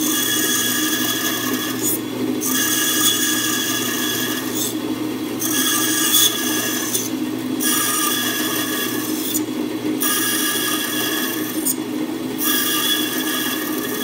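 Bandsaw running steadily while its blade cuts into a wooden block in a series of relief cuts. The rasping cutting noise comes in stretches of about two seconds and drops out briefly between them as the blade backs out of each cut, while the motor hum carries on.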